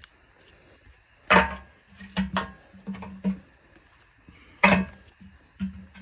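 Wooden blocks knocking and clunking against each other and the steel drum as they are packed into a homemade burn barrel: a series of sharp knocks, the loudest about a second and a half in and again near the end.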